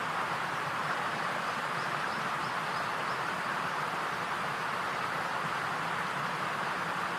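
Steady, even rushing noise at a constant level, like wind or flowing water, with faint high chirps about two to three seconds in.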